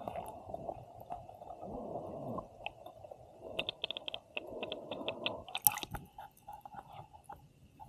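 Muffled water sounds around a camera being hauled up through the water, with irregular crackling. A quick run of small clicks builds to a sharp knock just before the camera breaks the surface, about six seconds in.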